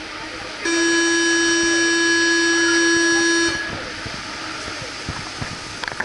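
Paris Métro train's door-closing warning buzzer: one loud, steady electronic tone sounding for about three seconds and then cutting off. It warns that the doors are about to close before the train leaves the station.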